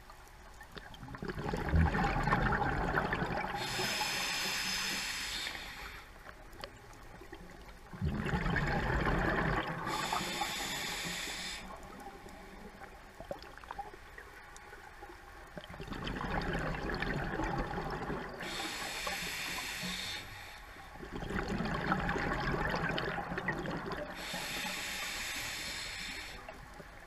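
Scuba diver breathing through a regulator underwater: four breaths, each a rumble of exhaled bubbles together with the regulator's hiss, with quieter pauses between them.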